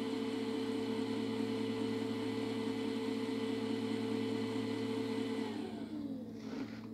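Small DC cooling fan (a computer-style cooler) running steadily, then spinning down about five and a half seconds in, its pitch falling as it slows to a stop: the thermostat has switched it off because the room is now within the raised 21-degree setpoint.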